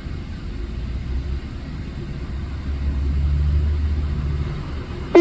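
A low vehicle engine rumble swells about three seconds in and eases off again. Right at the end a tornado warning siren cuts in loudly, its pitch rising as it winds up for a test of the emergency warning system.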